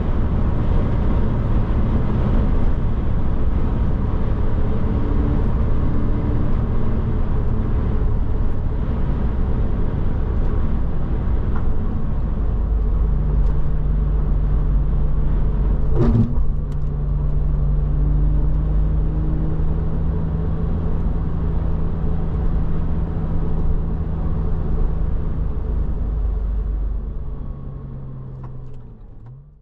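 Porsche Boxster driving on the road, its engine running steadily with tyre and road noise, settling into a steady cruise about halfway through. A single sharp click about sixteen seconds in; the sound fades out near the end.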